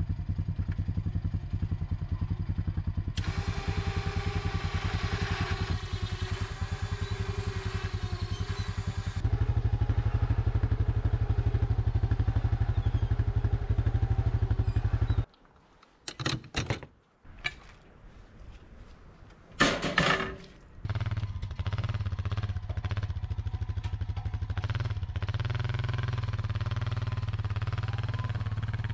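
ATV engine running steadily with an even rhythm while towing a log-loaded trailer, getting louder about nine seconds in. Past the middle the engine drops out for several seconds, leaving a few clattering knocks and one loud thump, then the engine runs steadily again.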